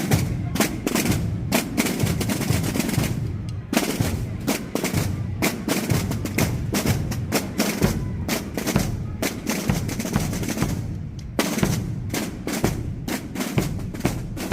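Holy Week drum band of snare drums and bombos (large bass drums) playing a fast, dense pattern of strikes and rolls.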